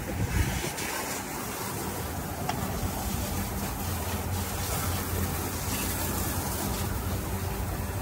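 Fishing boat's engine idling steadily with a low hum, under a haze of wind and water noise, with a single knock about half a second in.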